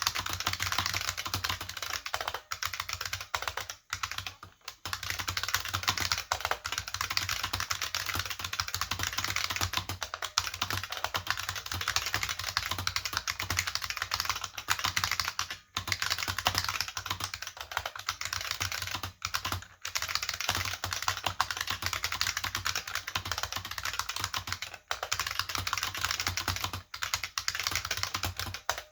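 IBM 5155 keyboard with capacitive buckling spring switches being typed on rapidly and continuously: a dense stream of sharp key clicks, broken by a few brief pauses.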